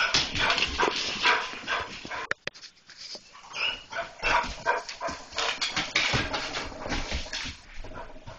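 German Shorthaired Pointers barking rapidly at a cat they have spotted, in two spells with a short pause about two and a half seconds in.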